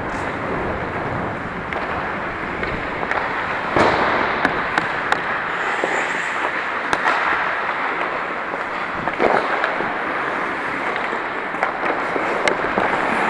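Ice hockey play: a steady scraping rush of skates on the ice, broken by scattered sharp clacks of sticks and puck, the loudest about four seconds in.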